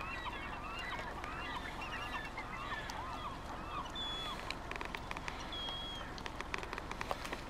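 A flock of gulls and bald eagles calling: many overlapping arched calls for the first few seconds, thinning to a few high, drawn-out whistled notes. A scatter of light clicks follows in the second half.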